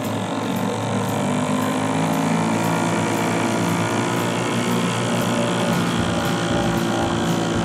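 Small outboard motor running under way, speeding up slightly about a second in and then holding a steady pitch.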